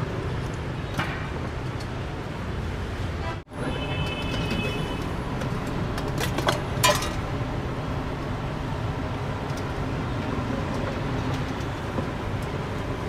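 Street traffic running steadily around a roadside noodle stall. A few sharp clinks of metal cookware, and a short high ring, stand out about four to seven seconds in.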